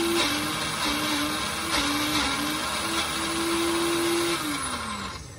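Small personal blender's motor running under load as it grinds chunks of órgano cactus, its pitch dipping now and then. Near the end the motor winds down and stops.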